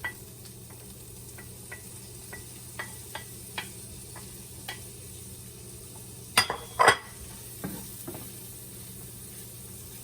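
Garlic and green pepper frying quietly in a pan while a utensil stirs them, with light scattered clicks and two louder clatters of the utensil against the pan about six and a half seconds in.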